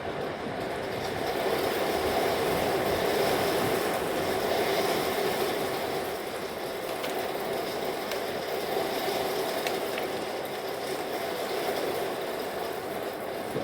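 Thunderstorm noise: a steady rushing rumble that swells over several seconds, eases, then builds again.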